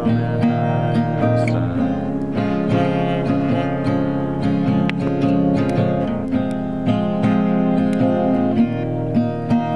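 Music: an acoustic guitar playing continuously, picked and strummed notes ringing over each other.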